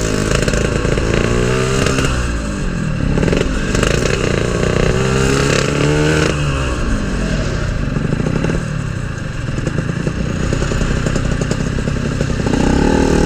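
Yamaha RX-King two-stroke single-cylinder motorcycle engine ridden through traffic, revving up in short rises and dropping back again and again. It settles to a lower, steadier note for a few seconds before picking up again near the end, with wind and road noise underneath. The bike has a freshly rebuilt gearbox and is on its road test.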